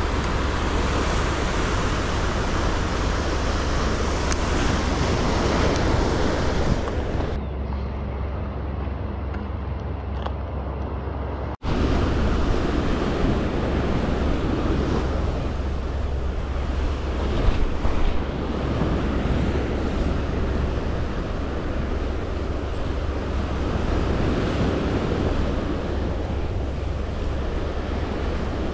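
Surf washing against shore rocks, with wind rumbling on the microphone. The sound changes abruptly twice and breaks off for an instant partway through, where the footage is cut.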